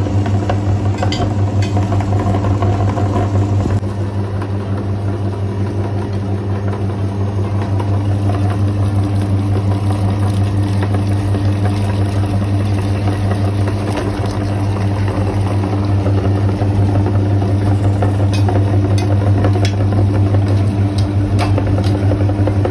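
Electric meat grinder's motor running steadily with a loud low hum, a few short clicks sounding near the end.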